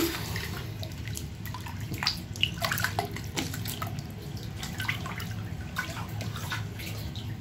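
Bathwater splashing and sloshing as foam bath toys are pushed through it by hand, with a louder splash at the start, then scattered small splashes and drips over a low steady hum.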